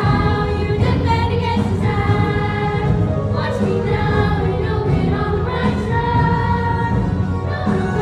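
Music with singing, several voices holding long notes over a steady bass.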